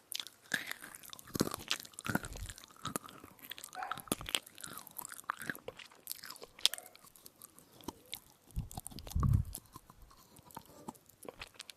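Close-miked chewing of an edible spoon: a dense run of irregular crunches and crackles, with a few heavier, deeper bites, the loudest about three quarters of the way through.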